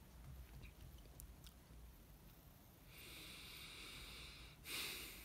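Near silence with a person's faint breathing: a slow breath out through pursed lips, then a short, slightly louder breath near the end.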